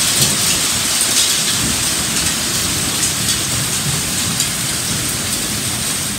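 Hailstones falling hard and pelting the ground and patio: a loud, steady, dense hiss of countless small impacts, with occasional louder single hits.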